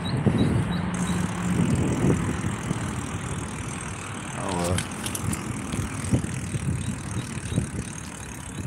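Wind rumbling on a phone microphone, with tyre and road noise from a bicycle being ridden over pavement.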